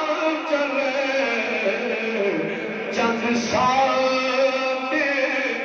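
A man's voice chanting in long, wavering melodic phrases, amplified through microphones: the sung recitation of a preacher in the middle of a sermon.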